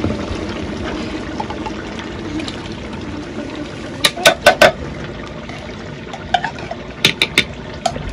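Metal spoon tapping against an opened tin can to knock out its contents: four quick sharp taps about four seconds in, then three more about three seconds later, each with a brief metallic ring. Under them runs a steady rushing noise.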